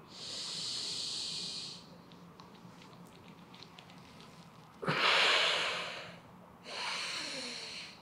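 A man breathing deeply and audibly, three long breaths in the slow, held rhythm of yoga breathing during a knee-to-chest pose. The second breath, about five seconds in, starts abruptly and is the loudest.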